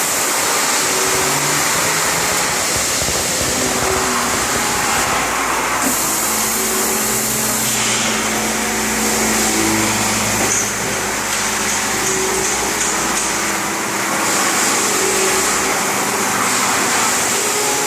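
CNC machine running: a loud, steady hiss with low hum tones that jump to new pitches every second or two.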